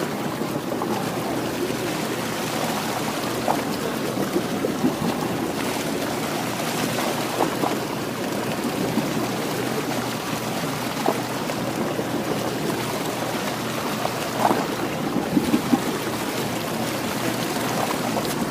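Steady rushing and splashing of seawater along the side of a sportfishing boat, with a few brief knocks near the end.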